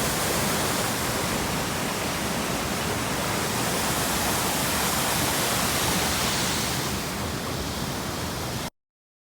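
Waterfall: a steady rush of falling water that cuts off suddenly near the end.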